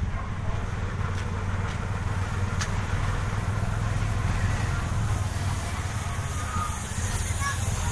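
Motor vehicle engine running steadily at low speed, heard from on board as it drives along a street: a constant low rumble with a few faint clicks in the first three seconds.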